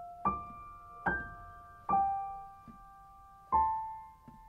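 Slow, sparse piano music: four single notes struck about a second apart, with a longer gap before the last, each left to ring out and fade.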